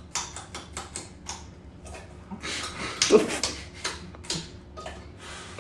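A run of irregular clicks and knocks, with a short stretch of rustling noise in the middle.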